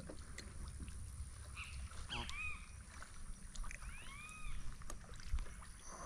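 Faint handling noise on a fishing kayak: a low rumble with a few small clicks, broken by two short high calls that rise and fall, about two and four seconds in.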